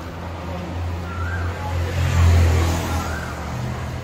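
A motor vehicle's engine hum, steady and low, swelling about two seconds in and then easing off as it passes.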